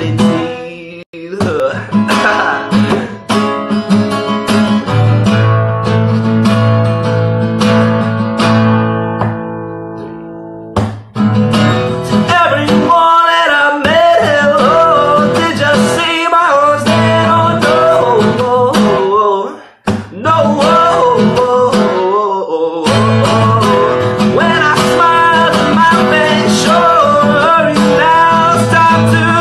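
Acoustic guitar strummed and picked, its chords ringing. From about twelve seconds in a man's voice sings a wavering melody over the guitar. The playing dips briefly twice.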